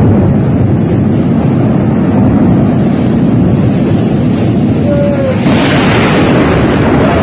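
Loud, steady storm noise: strong wind buffeting the microphone with a deep rumble. About five and a half seconds in, a brighter hiss joins it.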